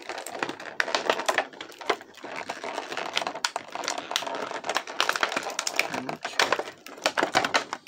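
Clear plastic packaging bag crinkling and crackling as hands pull and tear at it to work small plastic toy pieces out, a dense run of irregular crackles and clicks.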